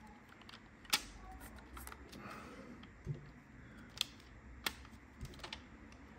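Rubber bands being stretched and let snap against the back of a Samsung Galaxy A52s phone while it is being strapped up. The snaps are faint and sharp, and there are a handful of them, spread irregularly.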